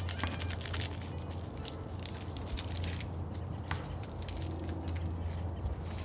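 A steady low hum with scattered small clicks and crackles throughout.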